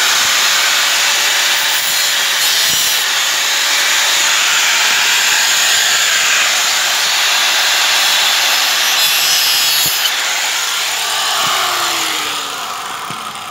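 Angle grinder cutting away a plastic bracket on the back of a car grille: a loud, gritty cutting noise over the grinder's steady motor whine. About ten and a half seconds in the grinder is released, and its whine falls as the disc spins down.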